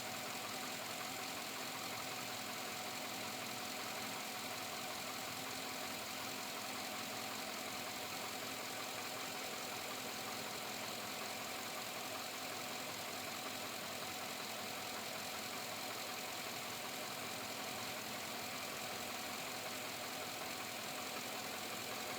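2007 Chevrolet Avalanche V8 engine running steadily with a knocking noise, which the owner cannot tell apart as engine knock or piston slap.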